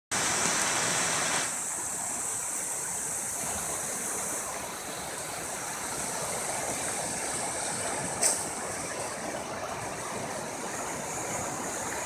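A shallow rocky river running over small rapids: a steady rush of water. A brief knock about eight seconds in.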